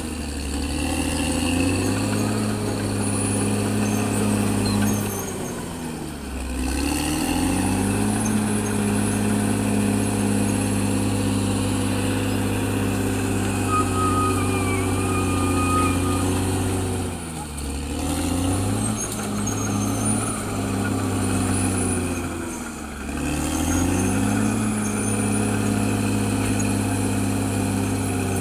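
Caterpillar D6R XL bulldozer's diesel engine running hard. Its note sags and climbs back three times, about six, seventeen and twenty-three seconds in. A faint high whine runs along with it.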